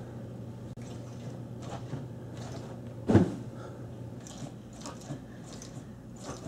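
A child throwing herself onto a large foam-filled bean bag chair and rolling over it: one soft thump about three seconds in, with smaller bumps and shifting around it, over a steady low hum.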